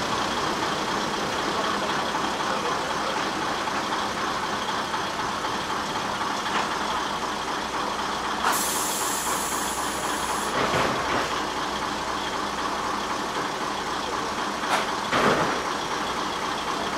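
Kominato Railway KiHa 200 diesel railcar running steadily, heard from inside: engine and wheels on the rails. A high hiss lasts about two seconds midway, and there are a couple of short knocks later on.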